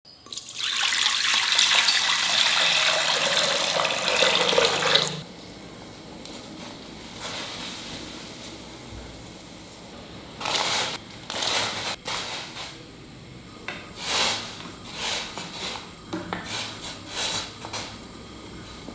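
Water poured from a steel vessel into a stainless steel pressure cooker, running for about five seconds and stopping suddenly, then a low steady hiss. From about ten seconds in, a string of short splashes and knocks as potato cubes drop into the hot water and are stirred with a wooden spoon.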